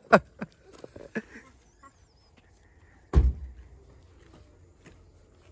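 A few light knocks and clicks, then one heavy, dull thump about three seconds in.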